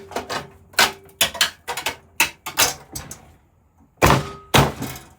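Thin sheet-metal bracket inside a steel PC case being struck and bent by hand: a series of irregular metallic knocks and clanks with a faint ring, the two loudest close together about four seconds in.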